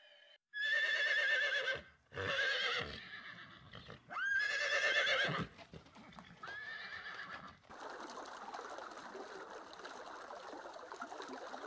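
Horses whinnying: four long, wavering neighs, three loud and a fourth fainter. A steady rushing hiss follows from about eight seconds in.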